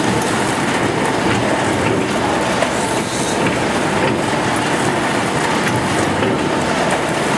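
Rotary die-cutting machine for corrugated board, with its chain feeder, running with a steady, dense mechanical rattle.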